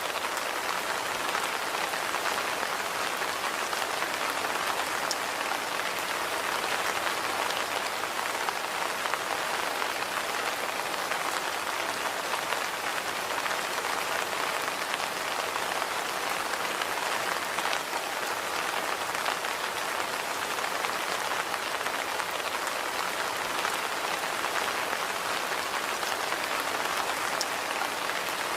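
Steady rain falling on a hard surface, an even hiss with a few faint drop ticks.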